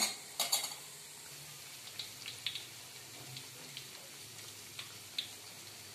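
Sesame-coated dough balls deep-frying in a wok of hot oil: a steady sizzle with a few sharp pops about half a second in and scattered small crackles after. The balls are at the stage of turning golden.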